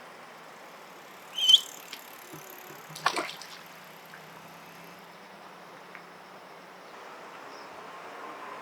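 Steady sound of flowing stream water, with a short high rising peep from a spot-billed duckling about one and a half seconds in, the loudest sound here. A brief noisy burst follows about three seconds in.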